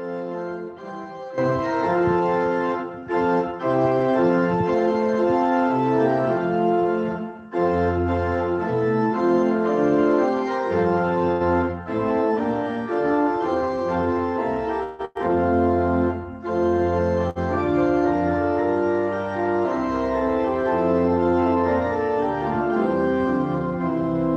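Organ playing a closing voluntary after the blessing: full, sustained chords moving in phrases with brief breaks between them, growing fuller about a second in.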